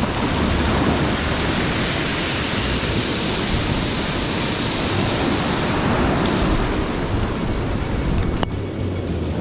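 Surf breaking and washing up a sandy beach, a steady rushing noise, with wind on the microphone. A single sharp click near the end.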